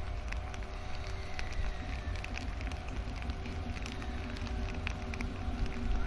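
Raindrops tapping on an umbrella, a scatter of small sharp ticks over a low rumble and a faint steady hum.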